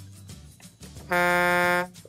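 Quiet background music, then about halfway through one loud, steady truck horn honk that stops just before the end.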